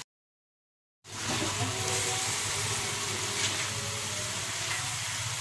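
About a second of dead silence, then sliced luffa and bean sprouts sizzling steadily in an aluminium wok as a plastic spatula stirs them, with one short scrape of the spatula midway.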